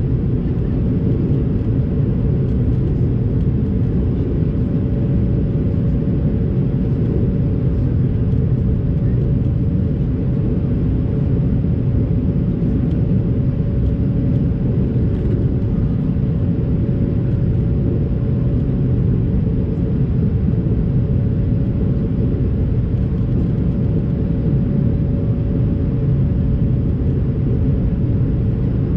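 Steady in-flight cabin noise of an Airbus A220-300: a deep, even rumble of airflow and its geared turbofan engines, with a steady hum just above 500 Hz.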